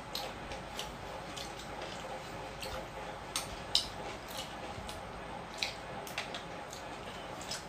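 Wet eating sounds close to the microphone: chewing, lip smacks and fingers working rice and gravy, heard as a scatter of short sharp squishy clicks, the loudest a little under four seconds in.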